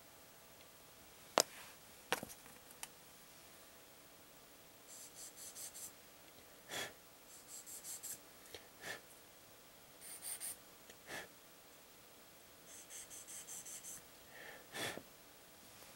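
Faint sounds of a plastic model kit being worked by hand: a few sharp clicks and snaps of the plastic parts, and several short runs of quick, rhythmic scraping strokes.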